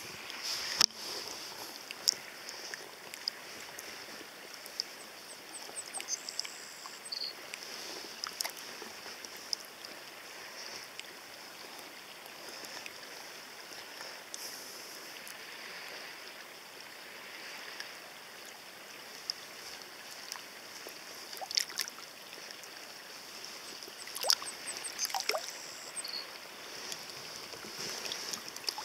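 Shallow river water running steadily, with occasional small splashes and knocks as a brown trout is held and released in the current.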